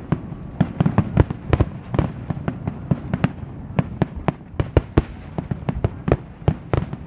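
Aerial fireworks shells bursting: a rapid, irregular string of sharp bangs and pops, several a second, over a low rumble.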